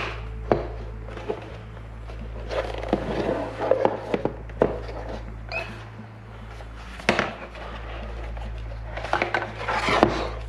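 Plastic shell and hood parts of a Trend Airshield Pro helmet being handled and snapped together: scattered clicks and knocks with rubbing between them, as the hood's tabs are pushed into place. A steady low hum runs underneath.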